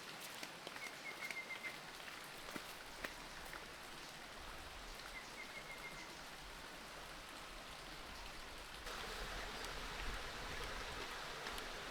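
Steady soft hiss of outdoor ambience with scattered light ticks and taps, and two short, high chirping trills. The hiss steps up in level about nine seconds in.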